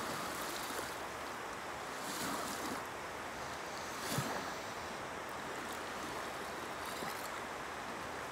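Small waves of a calm sea washing steadily onto a sandy beach, with wind. There are a few brief louder gusts, the strongest about four seconds in.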